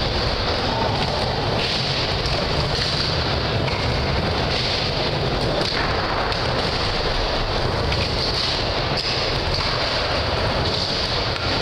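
Skateboard wheels rolling on a wooden mini ramp: a steady rumbling noise whose upper hiss swells and eases every second or two as the rider goes from wall to wall.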